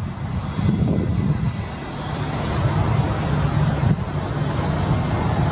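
Airbus A321's jet engines running at low taxi thrust as the airliner rolls and turns onto the runway before take-off: a steady low rumble, with a more even hum setting in about two seconds in. Wind buffets the microphone.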